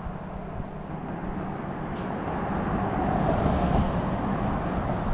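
Road traffic passing on a highway bridge: a steady low rumble of vehicles, swelling as one passes about three to four seconds in and then easing off.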